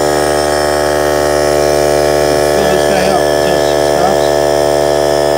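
Small Harbor Freight electric air compressor running steadily with a constant loud hum as it pumps up its little tank to full pressure.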